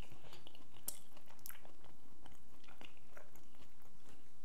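A person chewing a mouthful of soft boiled potato and herring, picked up close by a clip-on microphone on the chest: faint wet mouth sounds with a few small clicks.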